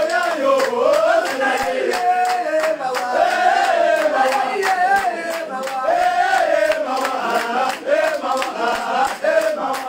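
A group of men chanting a celebration song together in unison, the melody rising and falling, with rhythmic hand claps.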